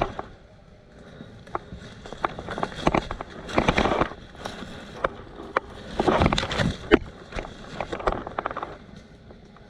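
Rustling and scraping of a player's clothing and gear as they get down and shift on the ground, in irregular bursts of a second or less, with a few sharp clicks.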